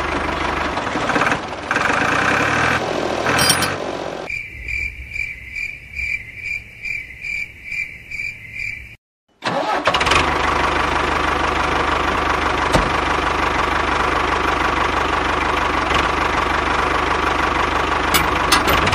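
A motor running steadily with an engine-like hum through the second half. Before that comes a high pulsing tone, about two pulses a second, then a brief dropout.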